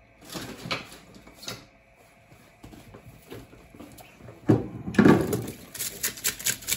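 Fish pieces being handled on a wooden cutting board in a stainless steel sink: light knocks, then a few heavy thumps about four and a half seconds in. Then the tap is turned on and water runs and splashes onto the fish, which is being washed of blood.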